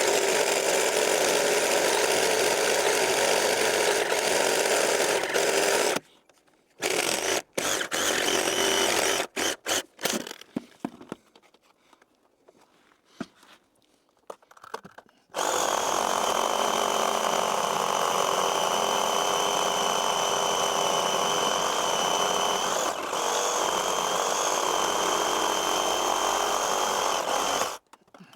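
Chainsaw running at high revs, cutting wood. It cuts off abruptly about six seconds in, leaving near silence with short scraps of sound for about nine seconds, then runs steadily again until a brief drop-out near the end.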